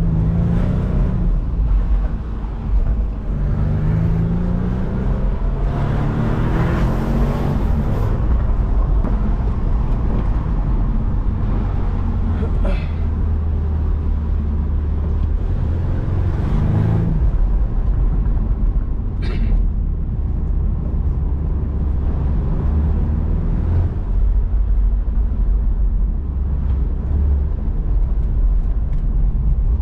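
BMW Z4 driving, heard from inside the car: the engine's pitch rises several times in the first eight seconds and again around sixteen seconds as it accelerates through the gears, over a steady heavy rumble of road and wind noise. Two brief sharp clicks come near the middle.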